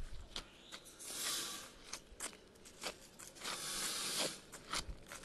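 Flour shaken out of a paper bag onto wet ground: two stretches of soft hissing rustle, with scattered small clicks and steps between them.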